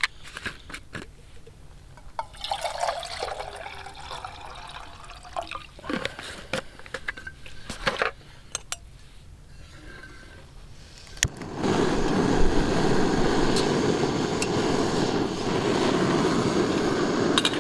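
Water being filtered and poured, with clicks and handling of camping gear. About eleven seconds in there is a sharp click, and a camping stove burner lights and runs with a loud, steady hiss to boil the water.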